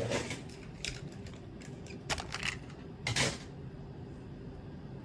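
Steady low hum of a car's engine and road noise inside the cabin, with a few short, irregular clicks and rattles over it.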